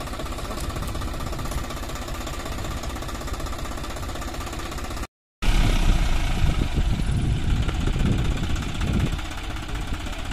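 Diesel tractor engines running hard as an Eicher tractor pulls a Swaraj 744 FE three-cylinder tractor that is stuck in mud. The sound cuts out for a moment about five seconds in, then comes back louder and deeper.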